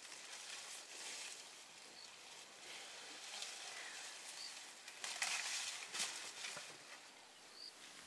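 Leaves and twigs rustling and crackling as an African elephant bull pulls at bushes while feeding, loudest about five to six seconds in. A few faint, short bird chirps come now and then.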